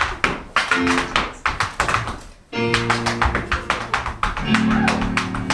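Tap-dancing steps, quick sharp clicks of tap shoes, over instrumental music with held notes.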